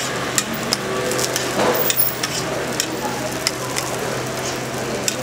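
Hotteok frying in oil on a flat steel griddle: a steady sizzle with frequent sharp crackling pops, over a steady low hum.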